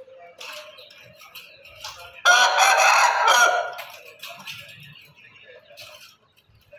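Mianwali Aseel rooster crowing once, a loud crow starting about two seconds in and lasting just over a second.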